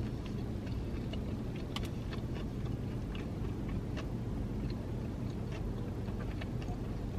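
Close-up chewing of a mouthful of Whopper burger: soft, irregular wet mouth clicks, over a steady low rumble inside the car.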